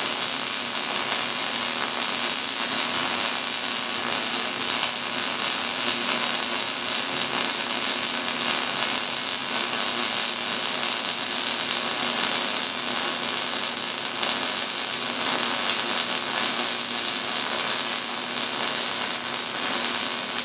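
MIG welding arc running steadily on a steel lap joint, a continuous crackle as the gun works along the seam in small overlapping circles; it cuts off at the very end as the trigger is released.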